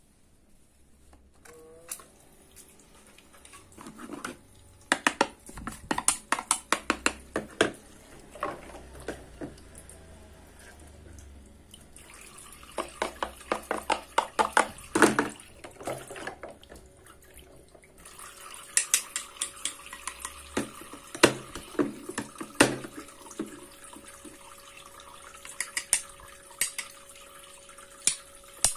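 Plastic toy fruits and vegetables handled and cut apart with a toy knife: bursts of quick plastic clicks and taps. Water runs and trickles in the toy kitchen sink underneath, with a faint steady hum in the later part.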